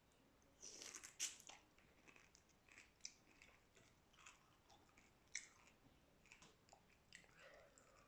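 Close-up eating sounds of boiled shrimp: faint, irregular clicks and crunches of chewing, with a louder cluster of crackles about a second in.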